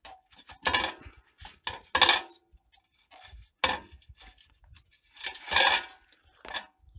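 Metal clinks and knocks of a homemade Stirling engine's steel flange and seal being worked loose and lifted off its cylinder by hand. The sounds come as a handful of separate bursts, the loudest about two seconds in and a longer one about five and a half seconds in.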